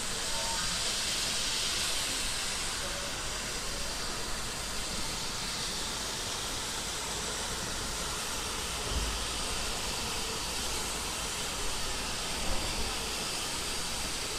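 Steam locomotive hissing steadily with escaping steam as it moves slowly, with a couple of faint low knocks.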